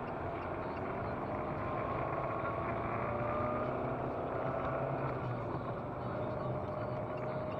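Car engine and tyre noise heard from inside the cabin while driving on a snowy road. The engine note rises a little over the first couple of seconds, then holds steady.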